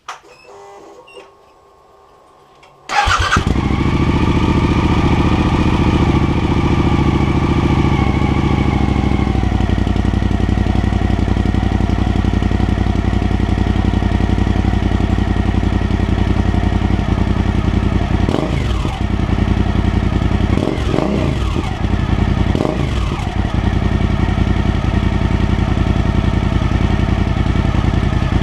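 Suzuki DL1000 V-twin engine breathing through a small aftermarket Chinese muffler: the starter cranks briefly and the engine catches about three seconds in. It runs at a fast idle, then settles to a steady lower idle several seconds later, with three short throttle blips in the later part.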